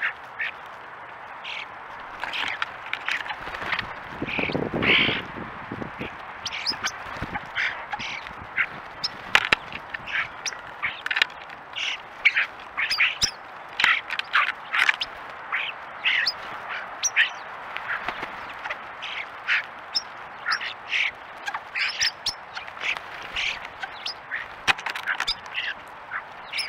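A flock of European starlings feeding together, giving many short, harsh calls and chatters one after another. About five seconds in there is a louder, lower burst.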